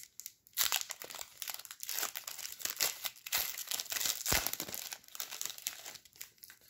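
Trading-card pack wrapper crinkling and tearing as it is handled and opened by hand, a dense, irregular crackle that dies away near the end.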